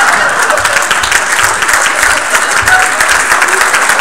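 Audience applauding loudly.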